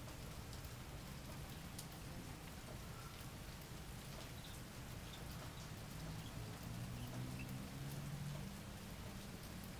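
Steady rain falling, with many small drop ticks. A faint low hum swells and fades about six to eight and a half seconds in.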